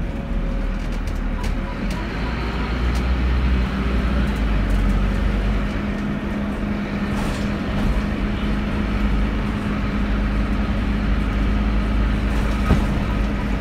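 Scania N270UD Darwen OmniDekka double-decker bus under way: a steady engine drone and road rumble heard inside the upper-deck cabin, with one sharp knock near the end.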